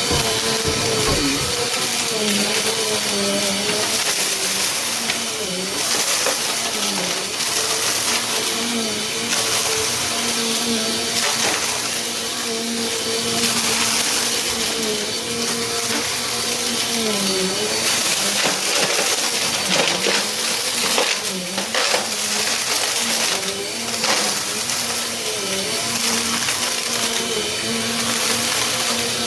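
Small Bissell upright vacuum cleaner running over a gritty, crunchy mess: a steady motor whine that dips in pitch briefly every few seconds as it loads up, with crunching and crackling as the brushroll picks up the debris.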